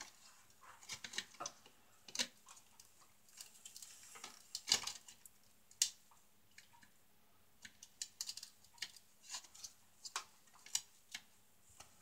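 Scattered, irregular plastic clicks and taps as a smoke alarm's plastic mounting ring is handled and fitted against a ceiling electrical box.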